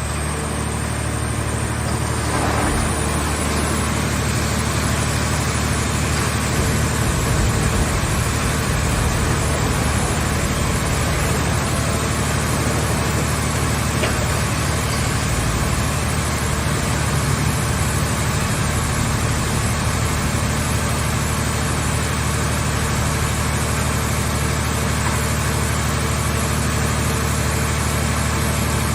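Engine of a hydraulic car baler running steadily with a low, even hum.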